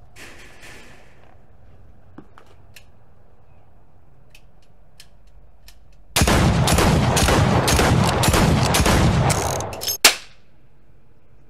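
Rapid automatic gunfire lasting about four seconds, a dense stream of shots that fades near the end, followed by one sharp single crack. Before it, a few faint clicks and a short rattle at the metal screen door.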